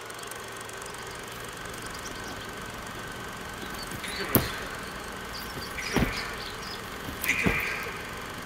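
Steady background noise, slowly swelling, broken by three sharp clicks or knocks in the second half.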